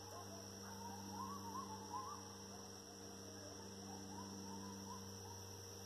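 Faint coyote pack howling and yipping, several wavering, rising-and-falling cries overlapping, strongest in the first couple of seconds and dying away about four seconds in. A steady low hum runs underneath.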